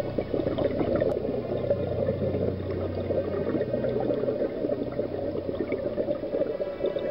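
Scuba diver's exhaled air bubbling out of the regulator underwater, a dense continuous gurgling crackle.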